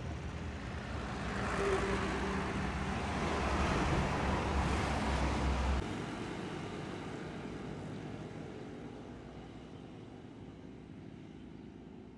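Heavy diesel truck passing close by: its engine rumble and tyre noise build to a peak and cut off suddenly about six seconds in. Quieter road traffic follows and slowly fades.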